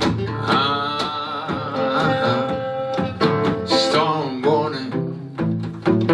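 Live acoustic blues music: plucked guitar over a double bass, with a wavering held note in the first few seconds.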